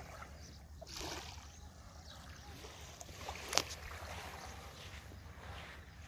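Calm sea water lapping gently at the shore, with a steady low rumble of wind on the microphone. A single sharp click about three and a half seconds in.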